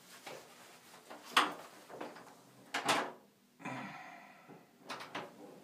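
Toilet stall door and its lock being handled: two sharp knocks about a second and a half apart, then a short rustle and a few quick clicks of the latch near the end.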